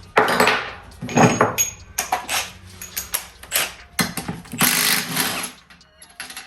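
Metal clanks and clicks of tools on the H22 gearbox casing, with a short burst of a power tool undoing a casing bolt about four and a half seconds in.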